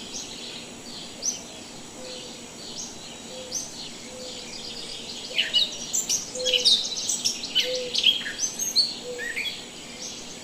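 Small birds chirping and singing, many quick short calls overlapping, growing busier and louder from about halfway.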